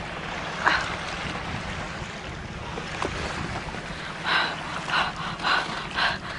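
Wind buffeting the microphone over water lapping against a canoe, with one short splash about a second in and four quick splashes near the end.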